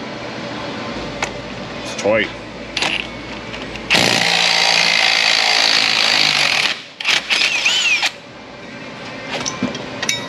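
Cordless 18-volt impact wrench hammering for nearly three seconds, starting about four seconds in, breaking loose a rusty brake caliper bracket bolt.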